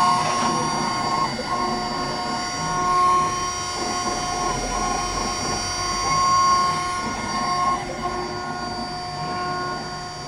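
Desktop mini CNC router running, engraving carbon steel: a steady machine whine made of several held tones, which break off and shift pitch a few times as the cutter moves.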